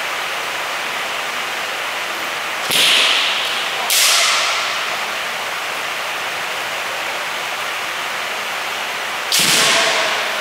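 Three sharp cracks of bamboo shinai strikes with a trailing echo from the hall: two about a second apart, then a third near the end, over a steady hiss.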